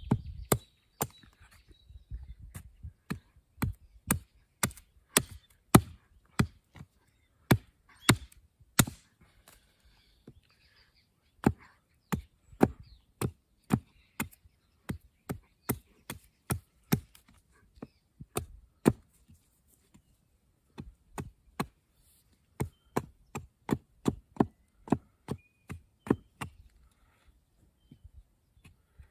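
A hatchet chopping at a wooden stick in short, sharp strokes, about two a second, with two brief pauses.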